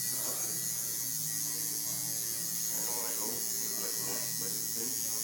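Electric tattoo machine buzzing steadily with an even low hum.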